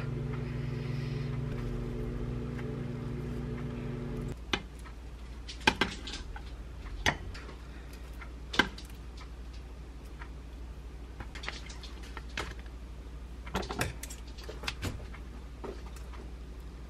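A steady appliance hum that cuts off abruptly about four seconds in, followed by scattered sharp clicks and taps of a table knife cutting steamed sweet potato on a plastic tray. Later come clusters of snips and clacks from kitchen scissors and metal tongs cutting a chicken-breast patty.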